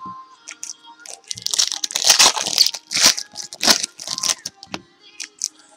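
Trading-card pack wrappers being torn open and crinkled, with cards being handled, in irregular crackly bursts.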